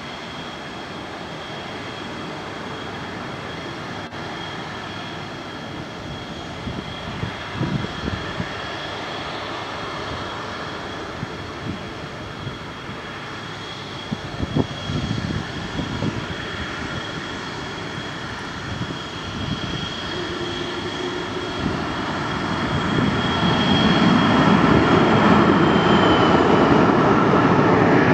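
Spanish Air Force F/A-18 Hornets' twin GE F404 jet engines running on the runway with a steady high whine, growing louder over the last few seconds. A few brief low gusts of wind hit the microphone.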